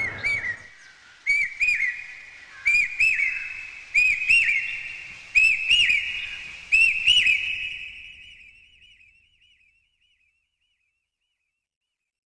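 An echoing two-note whistle, repeated six times at about one-and-a-half-second intervals. The repeats trail off in echoes and fade out about nine seconds in.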